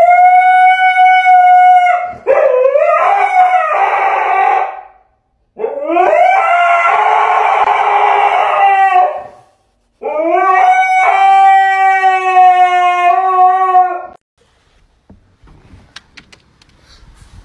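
Husky howling: four long, drawn-out howls of a few seconds each, loud and mostly held on one pitch.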